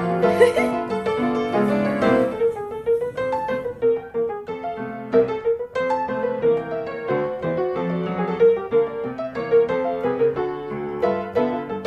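Background music led by piano: a light tune of quick, evenly paced notes over a held melody line.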